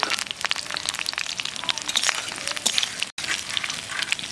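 Hot oil in a wok sizzling and crackling around freshly added fried papaya pieces and spices, with many sharp pops. The sound cuts out abruptly for an instant about three seconds in.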